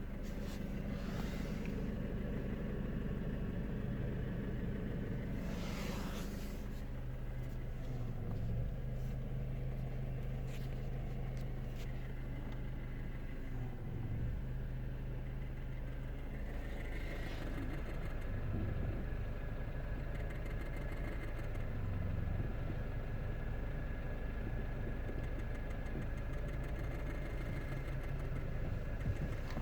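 Renault Kangoo 1.4 petrol engine idling steadily, its note shifting briefly several times. It is recorded to catch a knock that the owner says grows as the engine warms, comes and goes, and shows when the revs fall from about 2000 to 1000 rpm.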